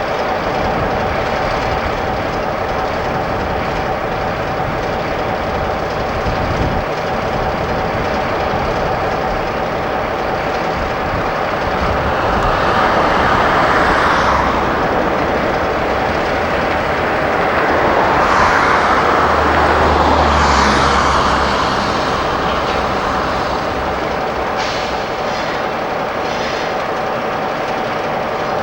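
Diesel-hauled train running on the line, its noise swelling about halfway through and again, louder and with a steady low engine note, a few seconds later.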